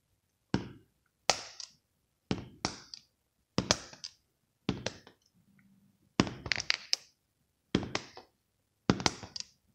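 Blue plastic highlighter being flipped and clattering down onto a spiral-bound notebook again and again: sharp clacks about once a second, most with a quick bounce right after.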